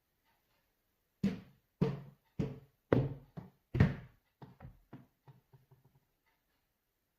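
A series of sharp knocks in a small room. The first five are loud and about half a second apart; the rest grow fainter and come closer together until they stop.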